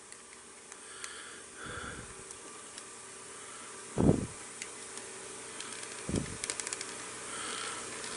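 Hard plastic parts of a transforming-robot figure handled and pressed together close to the microphone: a few dull bumps, the loudest about four seconds in, and a quick run of small plastic clicks a little after six seconds, over a faint steady hiss.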